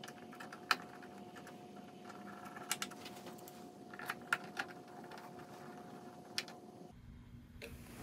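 Light, scattered clicks and taps of small screws and nuts being fitted by hand to the sheet-metal cover of a power supply, over a faint steady hum that cuts off near the end.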